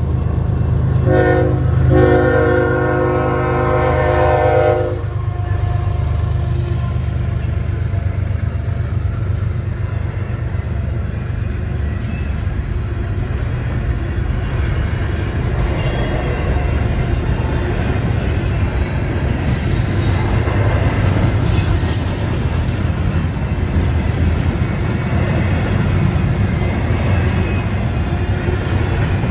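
CSX intermodal freight train at a grade crossing: the locomotive's horn sounds a short blast and then a long one in the first few seconds, then the double-stacked container cars roll past with a steady low rumble and some high wheel squeal in the middle.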